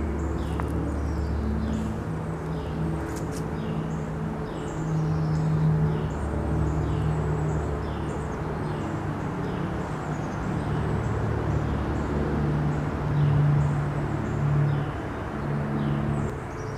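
Birds chirping repeatedly in short falling notes above a louder low drone that steps between a few pitches every second or so.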